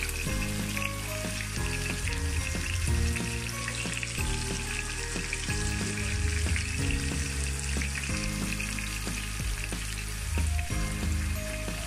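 Oil sizzling steadily around marinated tandoori chicken pieces shallow-frying in a frying pan over medium heat.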